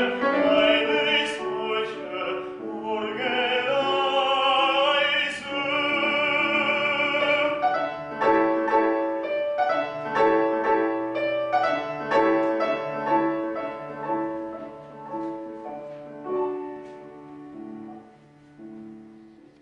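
Baritone singing with piano accompaniment; the voice holds a last long note with wide vibrato and stops about seven and a half seconds in. The piano then plays a postlude alone, growing softer and fading away near the end.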